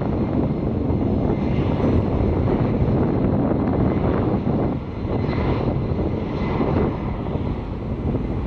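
Jet airliner engines running loud and steady as an aircraft moves close by the airport, a dense low rumble with a brief dip about five seconds in.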